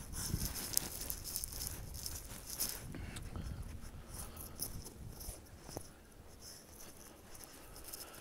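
Footsteps of a person walking a dirt trail through dry prairie grass, with crisp rustling and crackling of the dry stalks. They are louder over the first few seconds and quieter after about five seconds.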